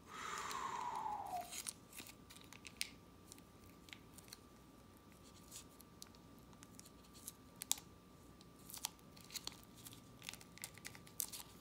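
A plastic ramen sauce packet being squeezed out, with a brief falling squeak near the start, then small scattered crinkles and clicks as the packet is handled.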